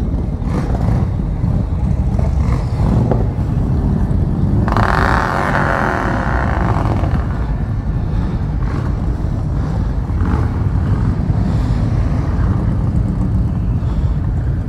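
Motorcycle engine running steadily at low speed, a deep continuous rumble as the bike creeps along, with other motorcycle engines around it. About five seconds in, a higher-pitched noise joins it for roughly two seconds.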